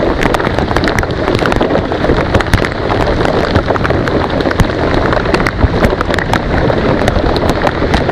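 Heavy rain pouring down on the lake surface around a kayak, a dense steady hiss scattered with many sharp, close drop impacts.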